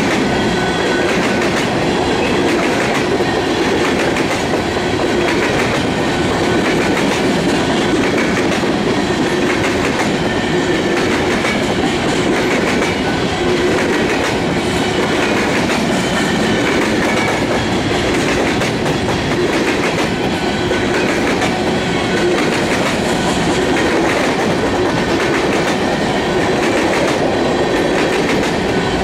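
Covered hopper cars of a freight grain train rolling past close by: steel wheels on the rails making a steady rumble and clatter at an even loudness.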